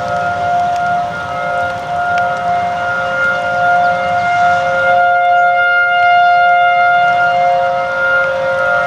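Several outdoor tornado warning sirens sounding together in a steady wail, their different pitches overlapping, getting a little louder about five seconds in. This is a routine siren test, heard over the hiss of heavy rain.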